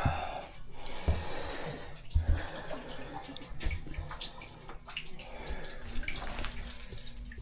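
Water splashing and dripping in a toilet, with scattered clicks and a few dull knocks, as a sewer-snake drain cable is pulled back out through the bowl.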